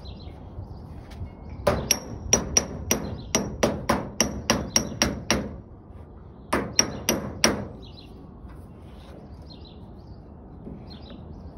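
Hammer on dolly beating a thin copper sheet, forming it into a curved truck roof: a quick run of about a dozen metallic, ringing blows, a short pause, then four more.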